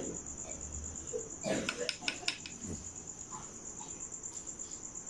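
A cricket chirping in a steady, high, rapidly pulsing trill, with a few light clicks near the middle.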